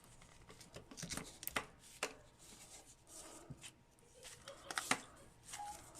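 Scattered faint clicks and ticks of hard plastic as an action figure's glued arm pieces are worked and pried apart by hand.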